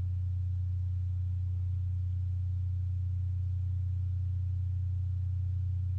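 A steady low hum, unchanging throughout, with no other sound audible.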